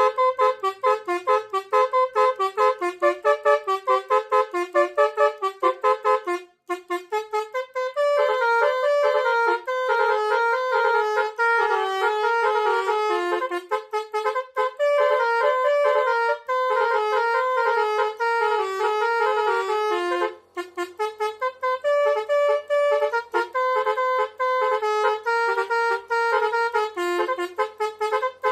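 A multi-tone 'telolet' bus horn playing a fast tune of short, bright, trumpet-like honks. It pauses briefly twice, once about six and a half seconds in and once about twenty seconds in.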